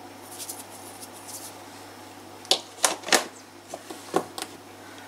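A metal tablespoon tipping sugar into a bowl of flour and milk: a faint rustle, then about five sharp clicks and taps of the spoon against the bowl and ladle in the second half.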